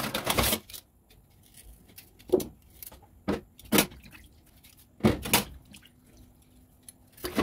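Kitchen handling sounds during food prep: a handful of separate short clatters and knocks of utensils or containers being moved, with quiet gaps between them.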